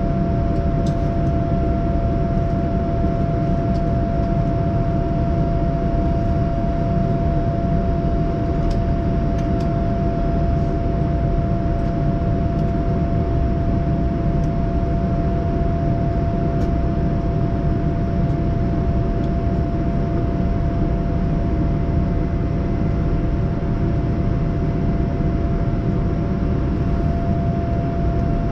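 Steady cabin noise aboard a Boeing 787-9 Dreamliner in flight after takeoff: a low rush of air and engines with a steady mid-pitched hum running through it.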